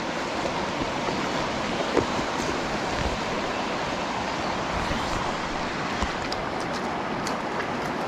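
Mountain stream rushing steadily, with a few faint clicks.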